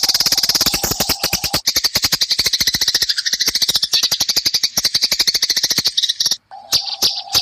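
Eurasian tree sparrows chattering in a rapid, harsh run of high chirps at about a dozen a second, the agitated calls of sparrows fighting. The chatter breaks off briefly near the end and resumes.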